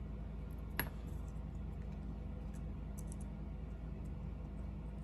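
Steady low room hum with one sharp click about a second in and a few faint ticks: small model-locomotive parts and screws being handled.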